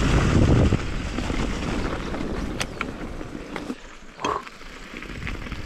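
E-mountain bike rolling over a dry, leaf-covered dirt trail: tyre and leaf rustle under wind buffeting on the camera microphone, loudest in the first second, then quieter, with a few sharp clicks and rattles from the bike.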